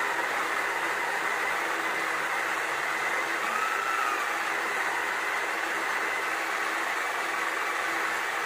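Small electric motor of a mini pottery wheel running at a steady speed, a constant whir with a low hum under it.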